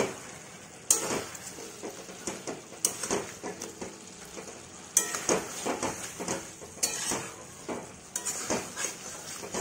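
A cooking utensil stirring and scraping in a pan of chicken and potatoes, knocking sharply against the pan every second or two, over a faint sizzle.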